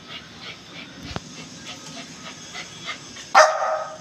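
A small shaggy dog, a Lhasa Apso, barks once near the end. Before the bark there are only faint scattered clicks.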